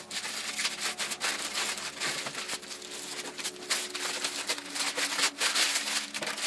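Plastic bag crinkling and rustling in irregular crackles as it is pulled off a new electric die-cutting machine.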